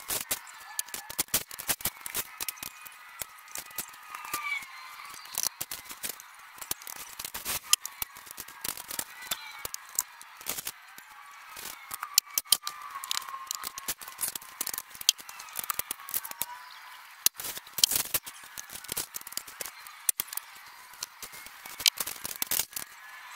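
Printed vinyl wrap film crackling and rustling in a stream of sharp clicks as it is handled and smoothed onto the side of a pickup truck, with a few short squeaks mixed in.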